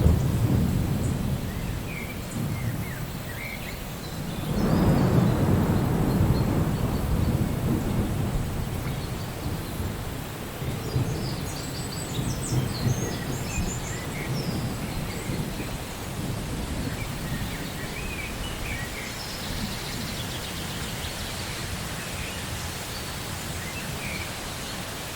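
Steady rain falling, with a long rolling thunder rumble that swells about four seconds in and fades slowly over several seconds. A few faint, short high chirps sound near the middle.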